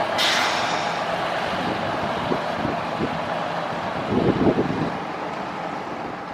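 Steady running noise of a vehicle, with wind on the microphone and a short hiss about a quarter of a second in.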